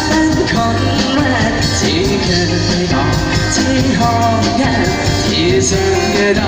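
Live band playing an instrumental passage of a Thai pop song between sung lines, with a steady beat.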